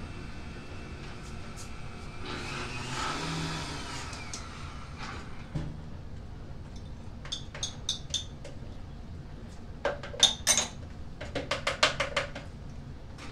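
Kitchen clatter: a short whirring rush about two seconds in, then a string of sharp clinks and taps of dishes and utensils in the second half.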